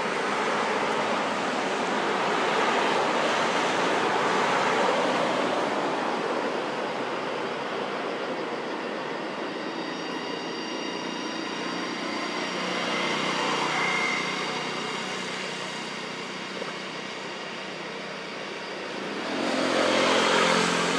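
Traffic passing on a road: several swells of engine and tyre noise, each rising and fading over a few seconds. The last and loudest one, near the end, carries a low engine hum.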